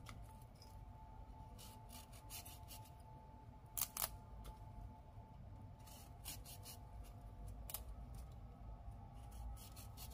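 Small serrated knife cutting through raw broccoli floret stems: a few faint, crisp snaps and clicks at irregular intervals, the loudest about four seconds in.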